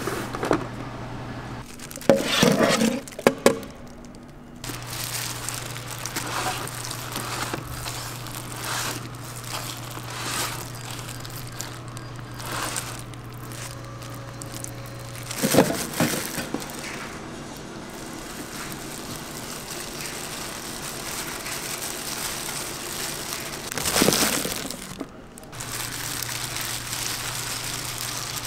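Kitchen handling sounds while a pizza is topped: knocks and clatter of a metal pizza pan, a spoon scraping tomato sauce across the dough, and plastic gloves crinkling over cheese, over a steady low hum. The loudest clatter comes about two seconds in, about halfway through, and near the end.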